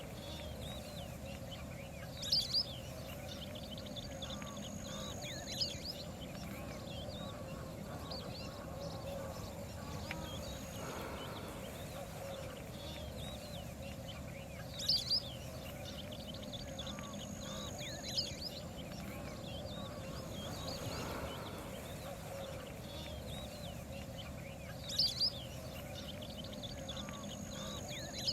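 Waterfowl calling: a few sharp short calls, mostly in quick pairs, over many small high chirps and a steady background.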